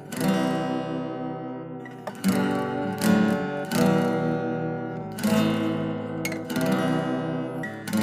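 Acoustic guitar strummed, with about seven chord strokes spaced unevenly, each left to ring out.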